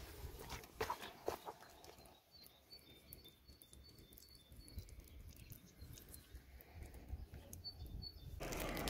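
A few light clicks and clinks of hand tools being handled, then a quiet stretch with faint high bird chirps. Near the end a burst of rustling handling noise starts.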